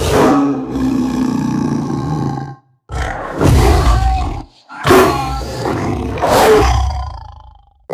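Black panther roar sound effect: a big cat's deep, rough roars in three phrases, broken by two short silences, with the last one tailing off near the end.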